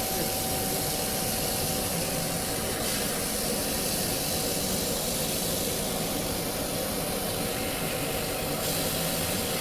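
Steady machine noise: a continuous low running hum under an even hiss, with no change in level.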